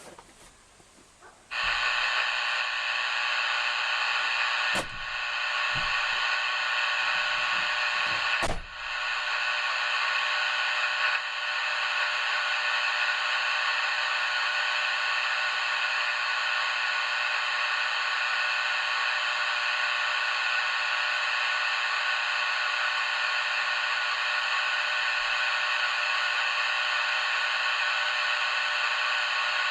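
A loud, steady electronic buzz made of many held tones from a CB radio set-up during an audio test. It starts abruptly about a second and a half in and is broken by two clicks.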